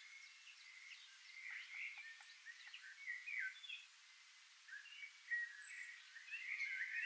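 Birds chirping and singing faintly: many short overlapping calls and quick whistled slides, over a soft outdoor hiss, busier near the end.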